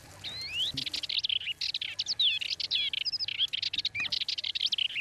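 A songbird singing a fast, twittering song of quick chirps and whistled upward slides, which cuts off abruptly at the end.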